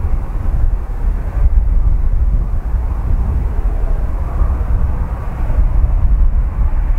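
Twin-engine jet airliner taxiing, its engines running with a steady hum that grows a little stronger partway through, under a heavy low rumble of wind on the microphone.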